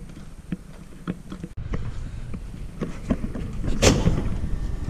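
Footsteps on an indoor gym floor, a step about every half second, then a loud clunk of a door being pushed open near the end.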